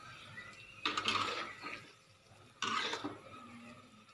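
A spatula stirring fish in gravy in a metal wok: two short scrapes against the pan, about a second in and again near three seconds.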